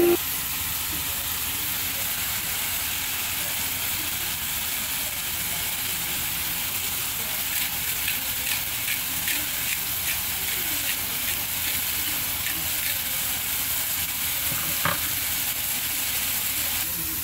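Sliced mushrooms sizzling in a frying pan, a steady hiss, with a run of light clicks from a utensil against the pan as they are stirred, from about eight to thirteen seconds in.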